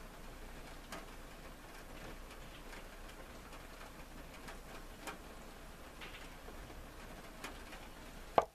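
Faint room hiss with a few light ticks while hot plastisol pours silently into a silicone mold. Near the end, one sharp knock as the glass measuring cup is set down on the wooden tabletop.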